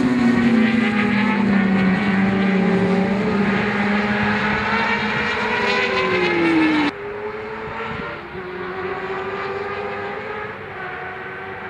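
Racing sportbike engines at high revs, their pitch falling slowly. About seven seconds in the sound cuts suddenly to a quieter, more distant bike engine holding a steady note.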